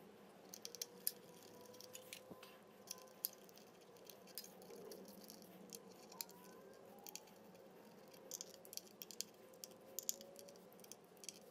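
Faint, irregular small clicks and ticks of a screwdriver and plastic wiring connectors being worked on a drive unit's circuit board, a dozen or so scattered sharp taps over quiet room tone.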